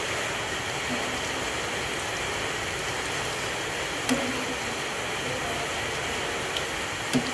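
Potato perkedel frying in hot oil: a steady sizzle throughout, with two light clicks, about four seconds in and near the end, from the wire skimmer working in the pan.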